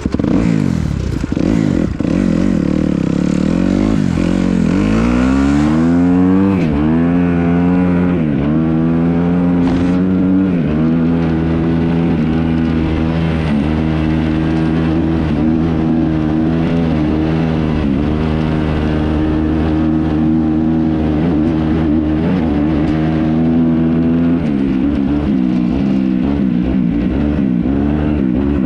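Kawasaki KX250X dirt bike's four-stroke single-cylinder engine pulling away and revving up through the gears, its pitch climbing and dropping back with each shift. It then holds a fairly steady pitch before the throttle varies again near the end.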